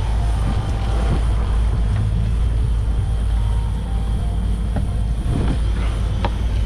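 Sport-fishing boat's engines running steadily at high-speed trolling pace, with wind buffeting the microphone. A couple of sharp clicks near the end.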